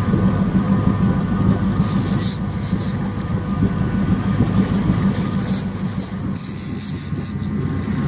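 Jet boat engine running steadily with a low hum, with brief hisses about two seconds in and again from about five to seven seconds in.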